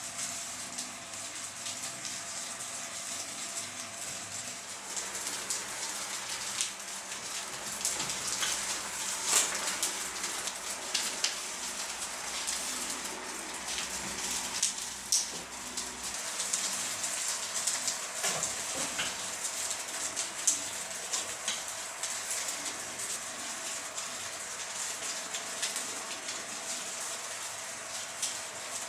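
Ribbons tied to an electric fan fluttering and crackling in its airflow over a steady hiss, with irregular louder crackles as a cat grabs and bats at them.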